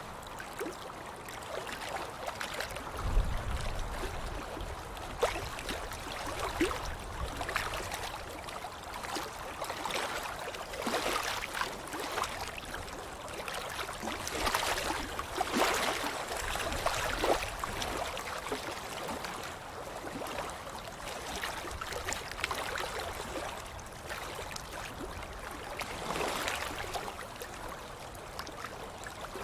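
Water splashing and sloshing without a break, with irregular louder splashes and a low thump about three seconds in.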